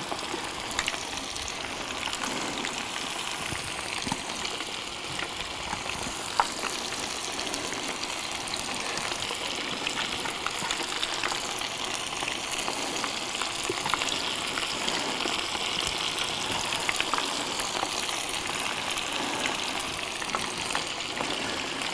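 Dry-battered crappie pieces frying in hot oil in an electric deep fryer, just dropped in: a steady sizzle with scattered pops and crackles.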